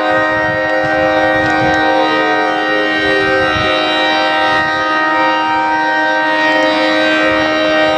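Federal Signal 3T22 tornado siren sounding a steady, chord-like alert tone. A fainter tone glides downward behind it about three seconds in.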